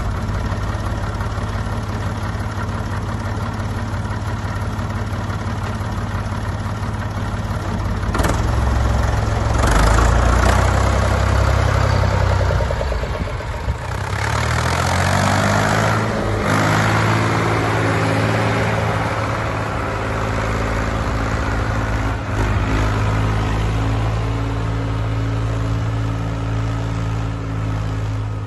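International McCormick 523 tractor's diesel engine, just started and idling steadily. It runs harder for a few seconds about a third of the way in. Then its note climbs and settles into a steady run as the tractor drives along.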